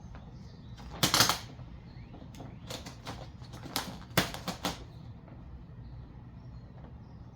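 Vinyl wrap film crackling and rustling in short bursts as it is handled and worked onto the car: one loud burst about a second in, then a cluster of shorter ones from about two and a half to four and a half seconds in, over a steady low hum.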